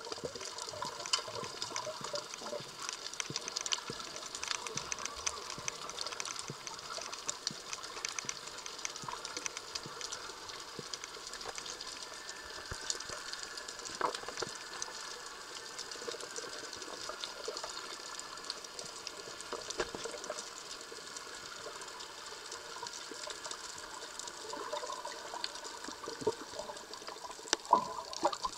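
Underwater ambience of the open sea: a steady hiss with frequent small clicks and crackles. A few louder splashy sounds come near the end.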